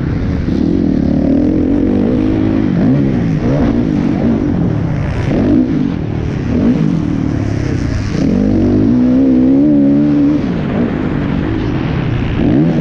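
Motocross dirt bike engine under race throttle, heard close from the rider's onboard camera. The revs climb and drop again and again, and about eight seconds in it holds a high, wavering rev for a couple of seconds.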